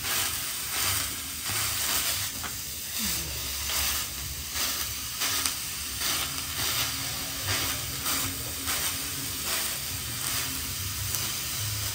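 Tissue paper wiping back and forth over a hot electric iron's soleplate coated with melted paracetamol tablet, in repeated strokes about one to two a second over a steady hiss.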